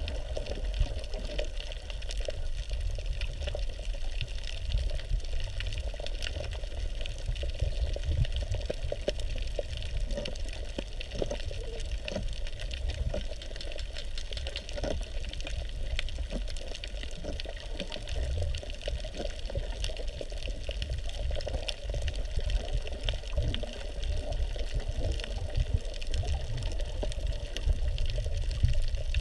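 Underwater ambience recorded with the camera submerged: a steady low rumble and hiss of moving seawater, scattered with faint clicks and crackles.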